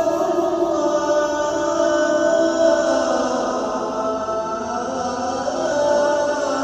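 A male muezzin chanting the azaan, the call to prayer: one voice holding a long, drawn-out melismatic phrase, with a slow glide in pitch partway through.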